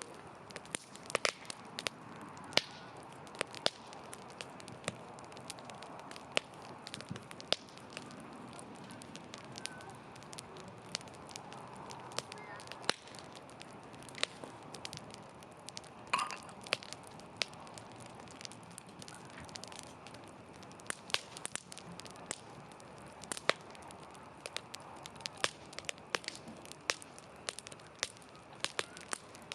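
Wood campfire burning, with a soft steady hiss and frequent irregular sharp crackles and pops from the burning wood.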